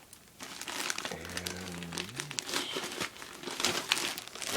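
Plastic courier bag crinkling in rapid, irregular crackles as it is handled and pulled open along its perforation.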